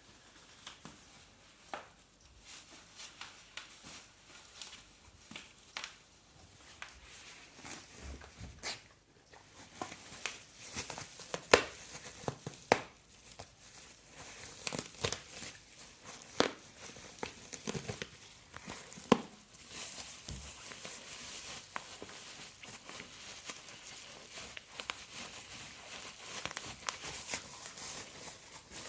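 A dog biting and chewing plastic bubble wrap: irregular sharp pops of bursting bubbles over the crinkling and rustling of the plastic, coming thicker from about a third of the way in.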